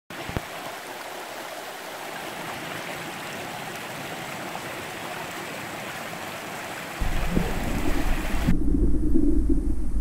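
Shallow rocky stream running, a steady rush of water over stones. About seven seconds in, a loud low rumble sets in, and a moment later the high hiss drops away, leaving a deep, muffled water sound as heard with the microphone underwater.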